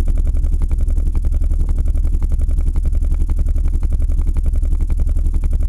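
RE Audio XXX12 12-inch subwoofer in a sealed box playing loud deep bass at long excursion, with a rapid crackle over it. The owner puts the distortion down to the Tru Technology Copper Hammer amplifier clipping on the car's stock electrical system with the engine off.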